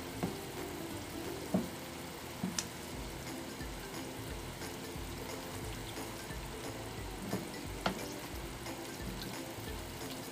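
Sweet and sour sauce simmering in a frying pan with a steady sizzle, stirred with a wooden spatula that knocks against the pan a few times.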